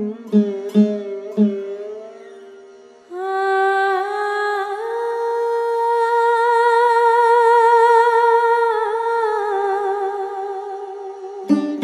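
Background score music. It opens with a few quick plucked string notes. From about three seconds in, a long wordless melody is held with a wavering vibrato and slowly rises and falls. Plucked notes return near the end.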